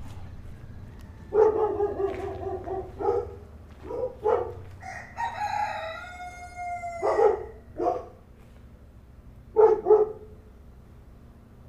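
Rooster crowing, two long drawn-out crows, the second falling in pitch at the end, with shorter sharp calls between and a quick double call near the end.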